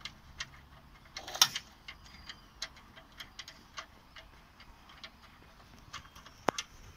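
Light clicking, two to three clicks a second, as the rear seatbelt mechanism's mounting bolt is worked by hand, with one louder clank about a second and a half in and a sharp click near the end.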